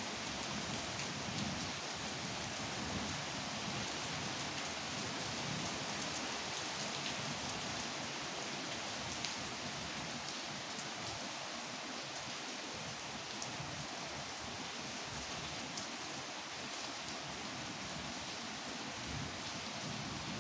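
Steady rainfall: an even hiss with scattered sharper drop ticks.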